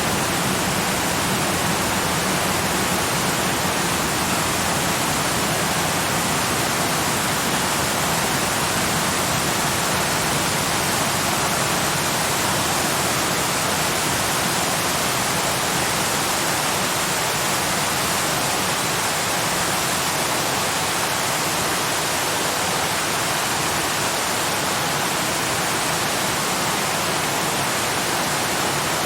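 Waterfall rushing in a steady, unbroken roar of falling water, even in loudness throughout.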